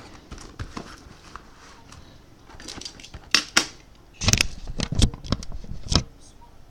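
Handling noise on a tabletop: scattered clicks, knocks and rustles of boxes and packaging being moved, with a few louder clusters of knocks partway through.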